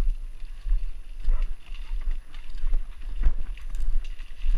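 Footsteps through wet marsh grass and reeds, the stems brushing against each other, with irregular low thumps as the camera jolts at each step.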